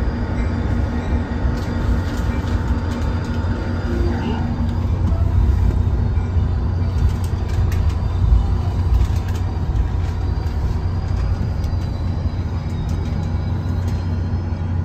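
Caltrain commuter train running, heard from inside a passenger car: a steady low rumble with a constant hum and a scattering of short clicks from the wheels and car body.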